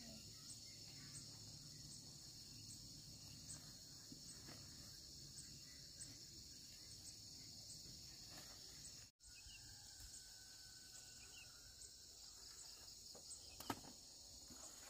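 Steady high-pitched insect chorus, like crickets or cicadas, faint throughout, with a brief dropout a little past halfway. A single sharp click near the end stands out as the loudest sound.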